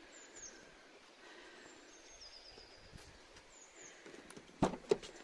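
Faint outdoor background with small birds chirping: several short high, falling calls and a brief trill. Near the end come two sharp clicks, a fraction of a second apart.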